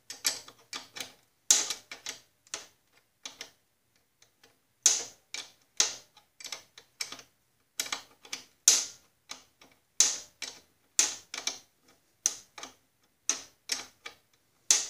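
A small steel wrench clicking against a nut in short, uneven strokes: a few sharp metal ticks a second, with brief pauses. The nut is being turned down the brake adjusting shaft of a garden tractor, putting more pressure on the brake spring to tighten the brake.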